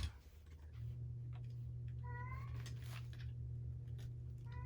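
A cat meowing twice, a short call about two seconds in and another near the end, over a steady low hum.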